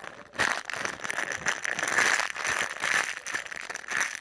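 Plastic packaging crinkling and rustling in irregular bursts as hands rummage through squishy toys.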